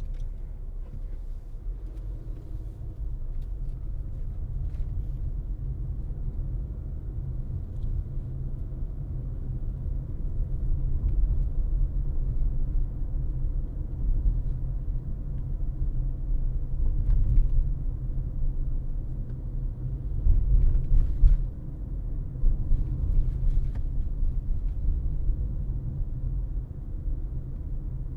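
Car driving, with a steady low road-and-tyre rumble; it swells louder for a moment about twenty seconds in, with a few faint ticks above it.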